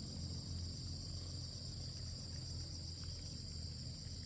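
Steady, high-pitched chorus of crickets trilling without a break, over a low rumble.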